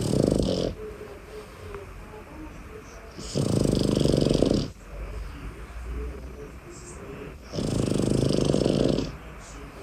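Boston Terrier puppy snoring in its sleep: a loud snore about every four seconds, each lasting over a second. One ends just after the start and two full ones follow, with softer breathing in between.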